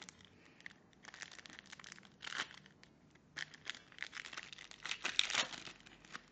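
Trading-card pack wrapper crinkling and tearing in irregular bursts as a pack is opened and the cards handled, the loudest rustle about five seconds in.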